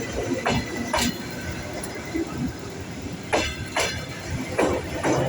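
Train rolling slowly over rail joints: three pairs of sharp wheel knocks, each pair about half a second apart, over a steady rumble.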